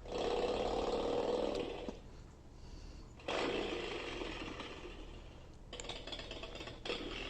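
Kinderbot toy robot's speaker playing stored sound effects in its sound test mode: noisy, mechanical-sounding effects in separate bursts, the first about two seconds long, the next starting about three seconds in, then shorter ones near the end.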